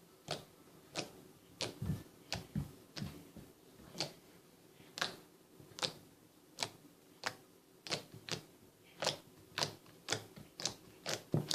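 Homemade fluffy slime being squeezed and poked by hand, giving off a run of small sticky pops and clicks, about two a second at an uneven pace.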